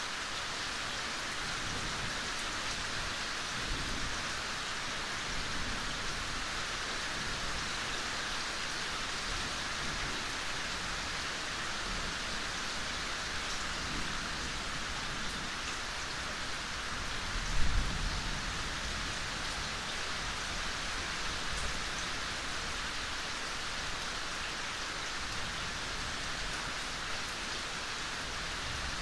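Steady rain falling in a forest, an even patter and hiss of drops on leaves and ground. About two-thirds of the way through comes one brief low thump.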